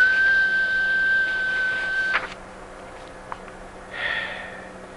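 A single steady, high-pitched whistle, held for about two seconds and cut off sharply, imitating a tea kettle whistling. It is followed a couple of seconds later by a brief faint hiss.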